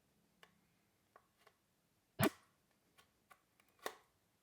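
Pry tool working the snap-fit clips of a lamp housing: a few faint clicks, one sharp snap about two seconds in as a clip gives, and another click near the end.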